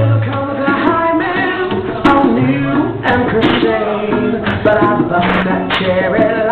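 Band music with held bass notes, drums and a singing voice.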